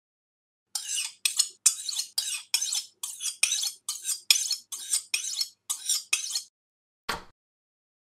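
Kitchen-utensil sound effect for a logo reveal: about fourteen short metallic clinks and scrapes in quick succession, then one fuller hit about seven seconds in.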